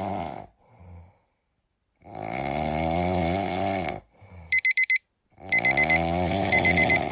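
Meme sound-effect clips: a long wavering wail, then quick runs of about five electronic alarm-clock beeps, twice more over a second wail.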